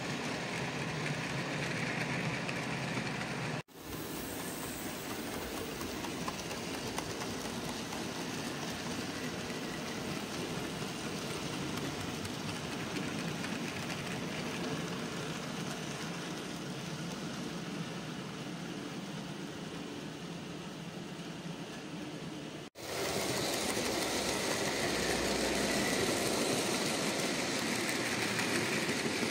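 OO gauge model freight train rolling along the track: a steady rumble and clatter of the wagons' wheels on the rails. The sound cuts out abruptly twice, about four seconds in and again about twenty-three seconds in.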